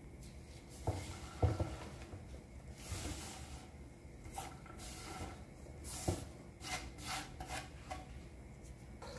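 Chopped Swiss chard leaves being pushed by hand off a wooden cutting board into a stainless steel mesh colander: soft rustling and scraping of the wet leaves, with a few light knocks about one and one and a half seconds in and again about six seconds in.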